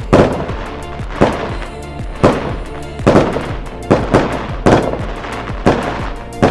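Background music with a heavy, steady beat: a sharp hit about once a second, each with a short decaying tail.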